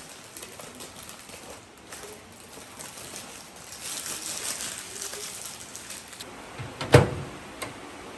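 Quiet indoor handling noises: scattered light clicks, a soft hiss around the middle, and one sharp knock about seven seconds in, followed by a smaller click.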